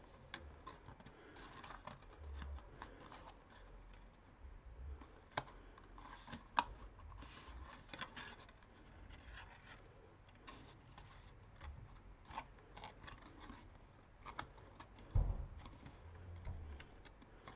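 Thin card being handled and folded by hand: scattered small clicks, taps and rubbing of paper on paper and on the desk, with a dull thump near the end.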